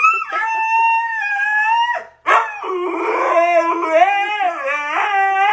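Dog howling: one long held howl, then after a brief break a longer wavering howl that rises and falls in pitch.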